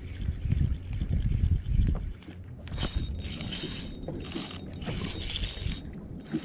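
Drag of a Daiwa Certate 2500R spinning reel buzzing in repeated runs of uneven length, starting about two and a half seconds in, as a hooked small bluefin tuna pulls line off the spool. Before that there is a low rumble.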